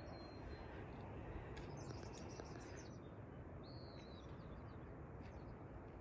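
Small birds chirping in short high calls, with one brief whistled note about two thirds of the way in, over a faint steady low rush of outdoor background noise.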